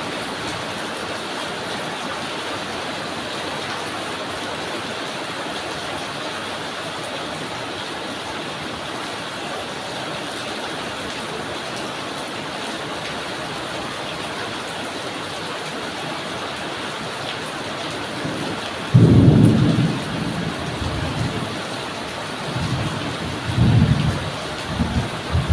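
Steady hiss of rain falling. About two-thirds of the way through, a sudden deep rumble of thunder, the loudest sound here, dies away, and further rolls of thunder rumble near the end.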